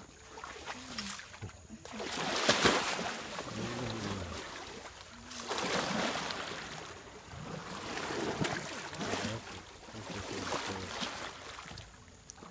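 Water sloshing and splashing around an elephant wading through a river, coming in several surges a few seconds apart.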